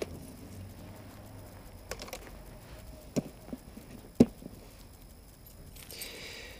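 A few scattered light clicks and knocks, with the sharpest one about four seconds in, over a faint low hum. A short rustle comes near the end.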